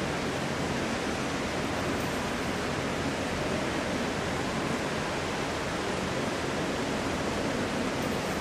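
Steady, even hiss with no speech or music, unchanging throughout.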